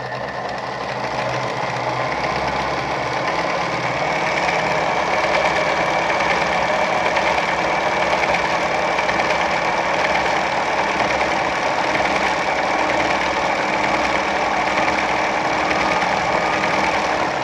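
Singer 306M heavy-duty sewing machine running steadily at speed, stitching a decorative cam pattern through fabric. It picks up speed over the first couple of seconds.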